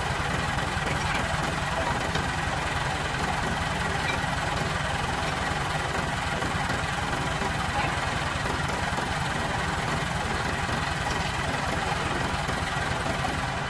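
An engine idling steadily with a fast, even beat that does not change.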